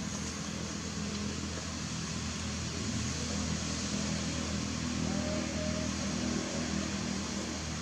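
A steady low mechanical hum with a constant hiss behind it, unchanging throughout. A faint short tone sounds about five seconds in.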